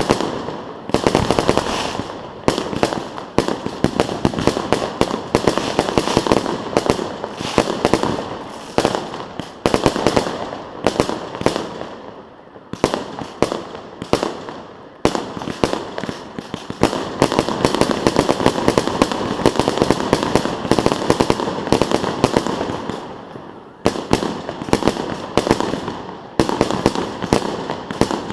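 Fireworks display: dense, rapid volleys of explosions and crackling bangs in several waves, with brief lulls between them.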